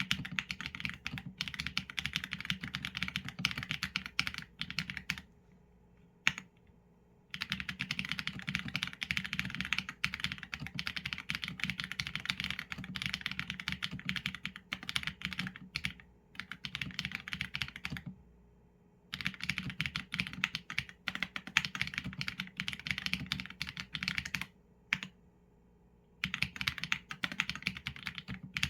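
Mechanical keyboard with Leobog Graywood v4 linear switches and PBT keycaps, typed on steadily in fast runs of keystrokes. The typing stops for a second or two three times, about a fifth of the way in, about two-thirds of the way in and near the end, with a single keystroke in the first and last pauses.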